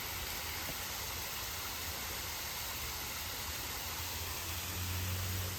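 Steady rush of flowing water, an even hiss with no break, joined by a low rumble about four and a half seconds in.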